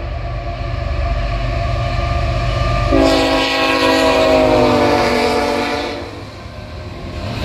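Diesel freight locomotive passing close at speed: its engine rumbles, then its multi-tone air horn sounds about three seconds in, drops in pitch as the locomotive goes by and stops about three seconds later. The train's cars rumble along the rails near the end.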